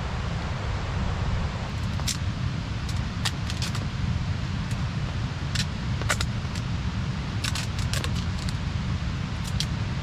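Kindling catching in a bushcraft log stove, crackling in scattered sharp snaps over a steady low rumble.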